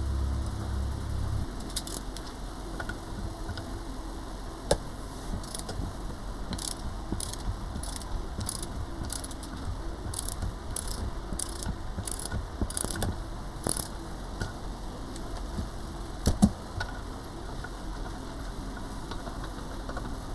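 Light metallic clicking, about two clicks a second for some twelve seconds, with a couple of sharper knocks, from hand tools working on a motorcycle front fork.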